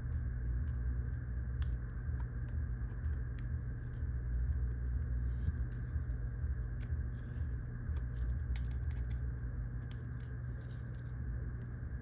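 Steady low background hum with faint scattered clicks and scrapes, as a prying tool is worked under the edge of an iPhone 15 Pro's screen to free it from the frame.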